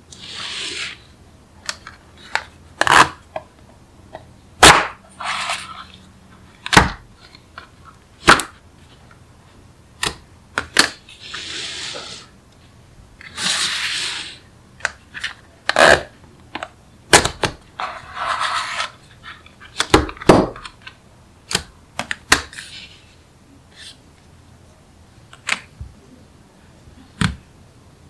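Small magnetic balls clicking as they snap together, in sharp irregular clicks, broken by a few short rattles of many balls rolling and rubbing against one another.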